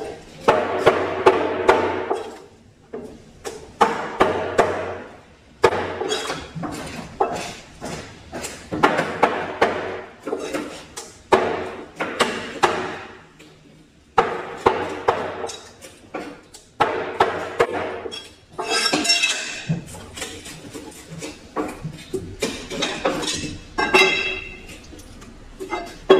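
Large knife chopping fish on a wooden cutting board: a run of sharp knocks as the blade strikes through the flesh into the board, some in quick flurries.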